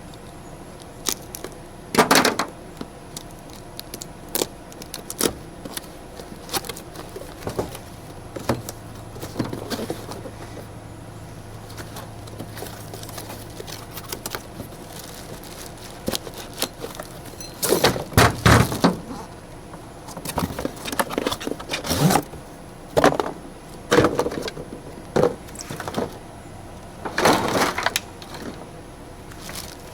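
A new tool being unboxed: a cardboard box and its packing pulled open and handled, with irregular rustling and scattered knocks and clunks. The busiest stretches come about two seconds in, around eighteen seconds in, and near the end.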